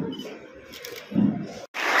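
Faint indistinct room sound with a short low murmur a little after a second in, then an abrupt cut to audience applause near the end.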